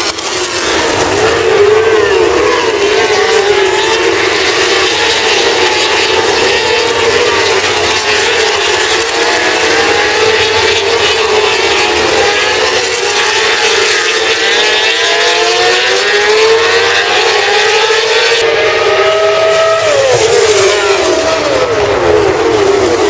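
A pack of Grand Prix road-racing motorcycles passing at race speed: many engines at once, their notes overlapping and rising and falling as the riders shift gears and work the throttle.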